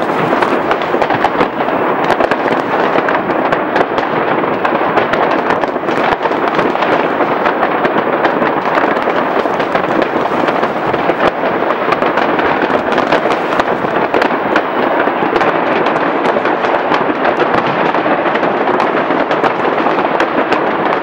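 Dense barrage of many fireworks going off at once: aerial shells bursting and firecrackers cracking. The bangs are so many that they merge into a steady loud din, with sharp cracks all through it.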